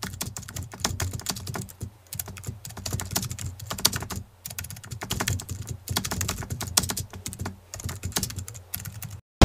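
Computer keyboard typing: quick, irregular key clicks that stop shortly before the end.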